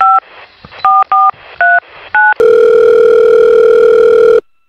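Telephone keypad tones as a number is dialled: five short two-note beeps, then a steady telephone line tone for about two seconds that cuts off suddenly.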